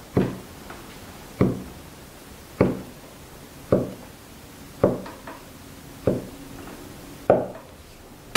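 Steel cleaver chopping down through folded dough onto a wooden cutting board: a row of seven even knocks, a little over a second apart.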